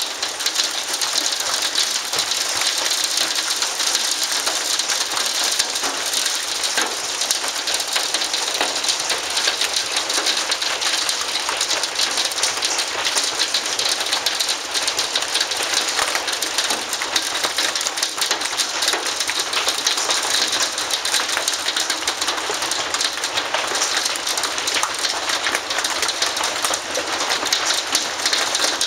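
Hail falling hard: a dense, steady rattle of countless small hailstone impacts on the ground and nearby surfaces.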